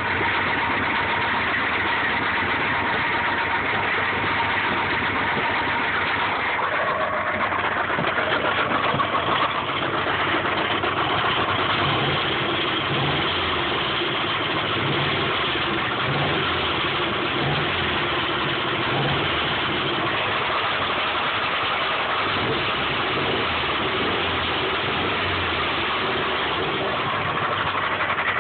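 1995 Subaru Impreza flat-four engine idling steadily with a rod knock that an oil change and additives have not cured, the sign of a worn connecting-rod bearing.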